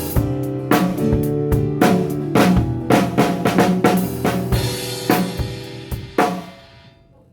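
Live band playing a worship song: a drum kit beats out a steady groove with snare and bass drum over held bass and keyboard chords. From about four and a half seconds a cymbal wash rings out, and the playing dies away near the end.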